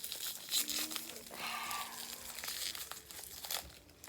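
Plastic cookie packaging crinkling and rustling as it is handled, in irregular crackly bursts.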